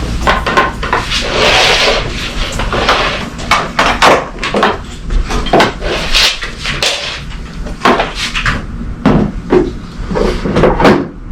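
Hard parts of a small wind-turbine kit being handled and fitted together: a scraping rustle in the first couple of seconds, then a run of uneven knocks and clunks, as the battery and control panel go onto the bench structure.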